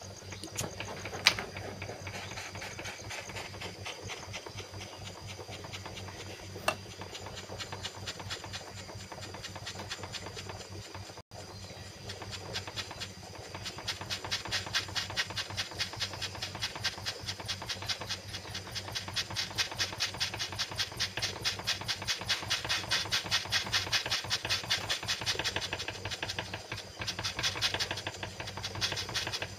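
Soldering torch flame hissing as it heats a silver chain joint, pulsing fast and evenly and growing louder from about fourteen seconds in. Two sharp clicks come before that.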